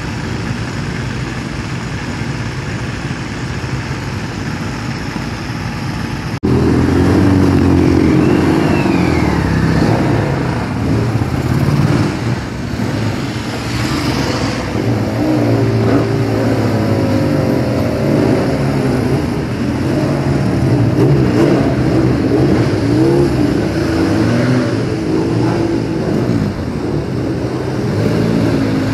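Classic racing sidecar outfits' engines running in the holding area, idling steadily. About six seconds in the sound jumps abruptly louder, and from then on several engines rev up and down.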